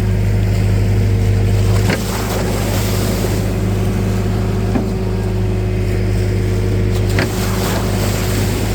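Diesel engine of a tractor or backhoe loader running at a steady speed, with a couple of brief knocks.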